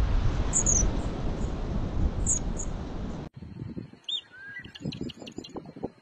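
Wind blowing hard across the microphone with a few high, thin bird chirps. About three seconds in it cuts off abruptly to a quieter track of bird calls: a couple of short whistled notes and a quick trill.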